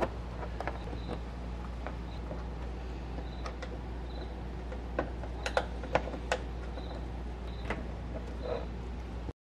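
Plastic push-pin clips on a 2016 Chevy Silverado's radiator cover being popped out with a screwdriver and pry tool: scattered light clicks and taps, with a run of sharper clicks around five to six seconds in, over a steady low hum. The sound cuts off abruptly near the end.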